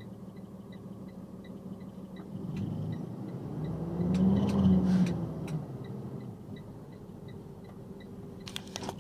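Road vehicle engine running with a steady low hum, heard from a moving truck, with faint ticking about three times a second. A louder rumble swells and fades about four to five seconds in, like a vehicle passing.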